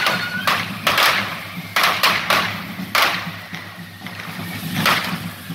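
Correfoc fireworks going off amid showers of sparks: about six sharp cracks and bangs, irregularly spaced. A high whistling firework tone fades out about half a second in.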